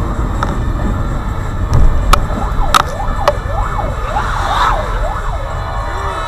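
Fire engine siren wailing up and down in pitch about twice a second, starting about two seconds in. It is heard from inside a car over steady road rumble.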